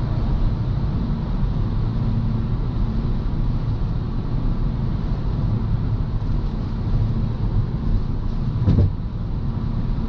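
Steady road and engine noise inside a Honda Civic's cabin cruising at highway speed, with a brief thump about nine seconds in.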